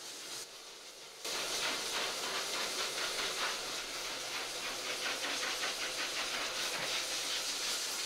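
Groomer's hose-and-nozzle pet blow dryer blowing a steady hiss of air into a wet dog's coat, growing suddenly louder just over a second in.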